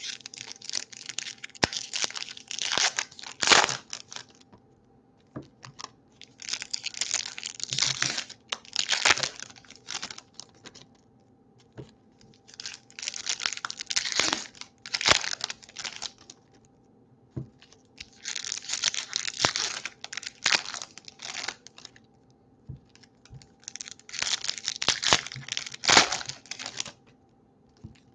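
Foil wrappers of Topps baseball card packs torn open and crinkled by hand, one pack after another: five bursts of crinkling a few seconds apart, each with a sharp rip.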